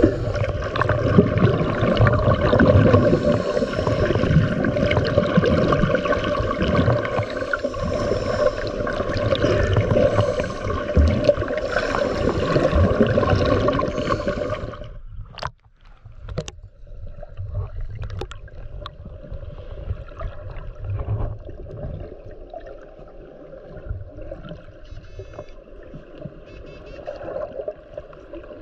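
Heard underwater: water rushing and bubbling under the steady drone of a boat motor. About halfway through it drops away sharply with a couple of clicks, leaving quieter water noise and a faint hum.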